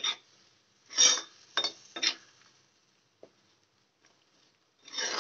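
A steel ladle scraping and clinking against a metal kadai while stirring a wet pickle mixture, in about six separate strokes with a short metallic ring, the longest stroke near the end.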